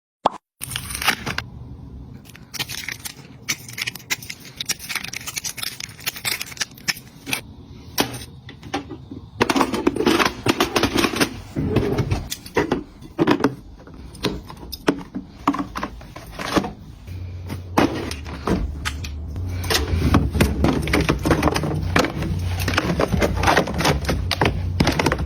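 Close handling noise: quick clicks, taps, scrapes and crackles of household items being picked up, set down and packed away. A steady low hum joins about two-thirds of the way in.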